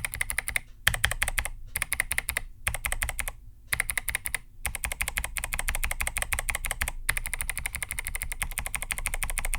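Rapid typing on Kailh Box White click-bar switches, original and V2 versions side by side in an 8BitDo keyboard's hollow plastic case. The keystrokes come in quick runs of clicks broken by short pauses. The originals sound fuller and deeper, the V2s tinnier and more high-pitched.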